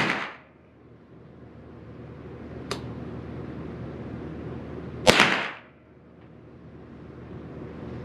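Two shots from a Derya TM22 .22 LR semi-automatic rifle firing 40-grain copper-plated hollow points, about five seconds apart: one right at the start and one about five seconds in, each with a brief echo. A faint click falls between them.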